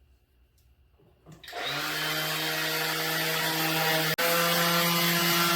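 Rotary sander starting about a second and a half in and running steadily with a motor hum and a hiss, sanding HDPE plastic pipe to rough its surface below the sheen. A very short break about four seconds in.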